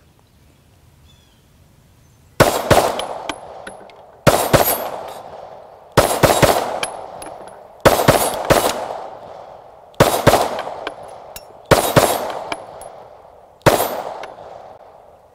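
Glock 19X 9mm pistol fired in rapid double and triple taps: seven quick strings of two or three shots, about two seconds apart, starting a couple of seconds in, each string ringing off afterwards.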